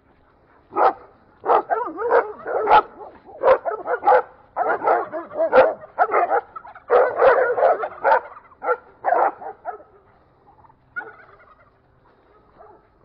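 Livestock guardian dogs barking hard and repeatedly behind a fence: unfriendly territorial barking. The barks come in quick runs from about a second in, die away after about ten seconds, and one more faint bark follows near the end.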